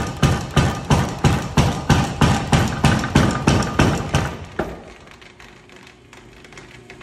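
Homemade 100 lb leaf-spring power hammer running, its ram striking in an even rhythm of about three blows a second. The blows stop about four and a half seconds in, leaving a much quieter steady hum.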